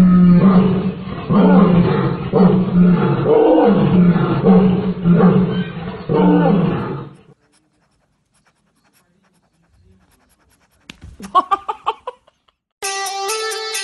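Lion giving a run of rhythmic roaring grunts, a little more than one a second, that stops about seven seconds in. After a short silence there are a few brief clicks, and music starts near the end.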